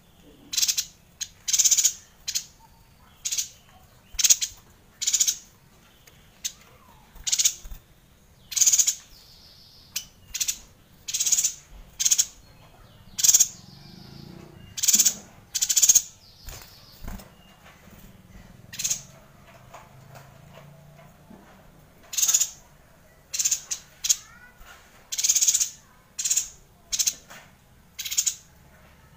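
Caged yuhina calling: a run of short, sharp, high-pitched bursts about a second apart, with a pause of a few seconds in the middle before the bursts resume.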